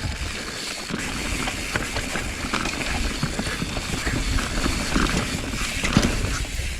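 Mountain bike riding down a loose, rocky trail: tyres crunching over loose dirt and stones, with constant rattling and clicking from the bike and wind rumbling on the camera microphone.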